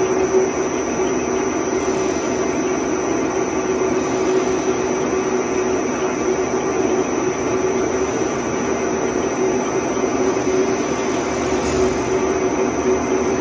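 ALCK6150x3000 CNC lathe running steadily: a constant whirring noise with a held tone through it and a faint high whine above.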